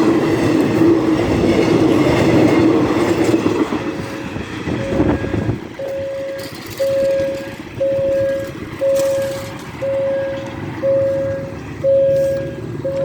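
Diesel-hauled passenger train rumbling past close by, with a steady engine hum, for about the first five seconds. The rumble stops abruptly, and a level-crossing warning bell carries on dinging about once a second.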